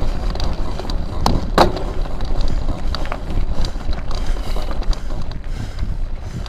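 Rumble and rattle of a bumpy off-road ride picked up by a vehicle-mounted camera, with wind on the microphone and two sharp knocks about a second and a half in.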